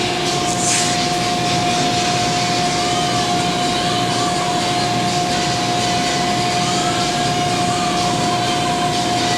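Steady mechanical drone: a constant rushing noise with a fixed high hum running through it, unchanging throughout.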